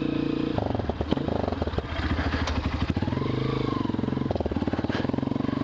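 Honda 230 dirt bike's single-cylinder four-stroke engine pulling away and riding at low speed. Its revs rise and fall once in the middle.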